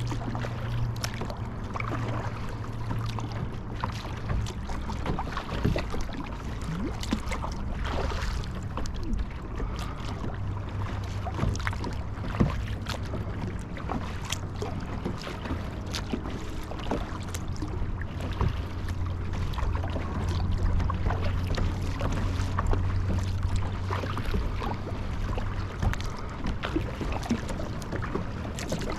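Water splashing and trickling around a kayak: many small, sharp splashes over a steady low hum.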